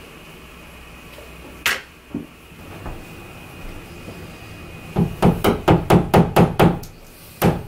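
Hammer tapping a nail into the wall to hang a picture frame: one sharp knock early, then a fast run of about nine light taps, and one more tap near the end.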